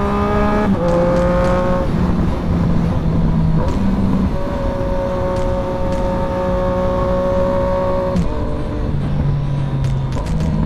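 Sport motorcycle engine running under way, holding fairly steady revs with the pitch stepping up and down several times as the rider changes gear or throttle.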